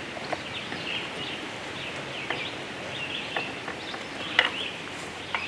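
Small birds chirping repeatedly in the background, with a few sharp clicks and knocks of metal parts as the new bar and chain are worked onto the chainsaw; the loudest knock comes about four and a half seconds in.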